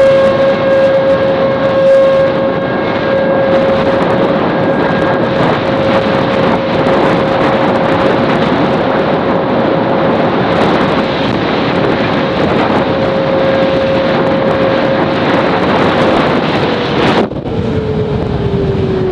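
Whelen WPS 2906 electronic outdoor warning siren sounding a steady tone, heard from a moving car under loud wind and road noise. Near the end the tone begins to wind down, falling in pitch, and the rushing noise drops off suddenly.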